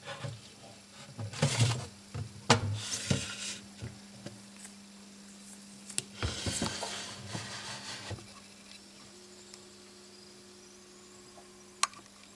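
Handling noises at a glass vivarium: two bouts of knocks, clicks and rubbing against glass, then a single sharp click near the end. A steady low electrical hum runs underneath.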